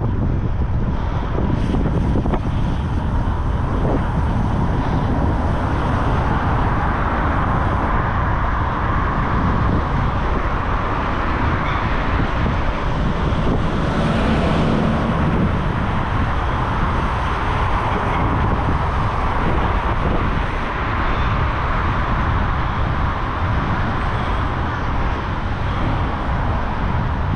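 Heavy breathing, heard as a continuous rushing noise with a strong low rumble and no clear pauses between breaths.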